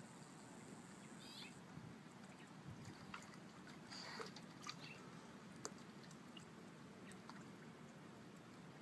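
Near silence, with a few faint scattered clicks and brief high chirps.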